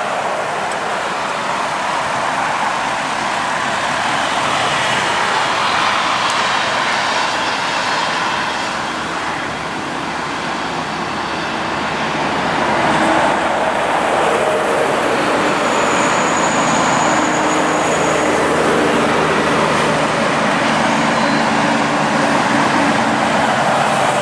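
Highway traffic passing with tyre noise. From about halfway a steady diesel engine drone builds as heavy-haulage prime movers, pulling oversize mining dump trucks on their trailers, come up the grade toward the microphone.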